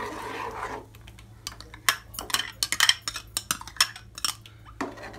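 Steel spoon clinking and scraping against a steel pot and the paste container as thick ground rice paste is scraped off into milk. A quick run of sharp, irregular clinks comes from about a second and a half in until near the end.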